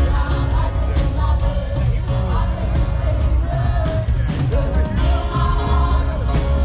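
Background music: a song with a singing voice over a heavy, steady bass.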